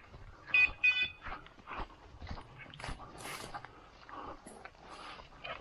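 A bird dog gives two short, high yelps about half a second in, over repeated rustling and crackling of dry brush and grass as the dog and the walker push through the undergrowth.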